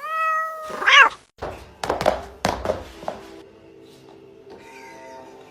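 A domestic cat meows twice in the first second, followed by a few sharp knocks.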